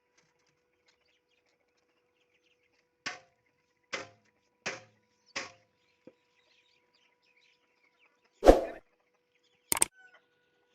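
Four short, sharp knocks about three-quarters of a second apart, then a single heavy thud and a quick double knock near the end, with near silence between them.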